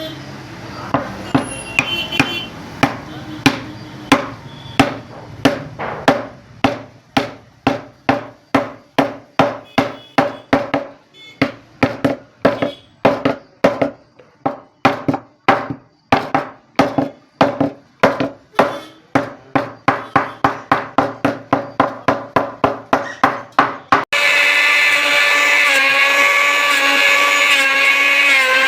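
Mallet blows on wood and chisel while a butterfly key inlay is cut and tapped in. The blows come in a steady rhythm, slow at first and then about two a second. About 24 s in they cut off abruptly and a loud, steady machine hum with a few held tones takes over.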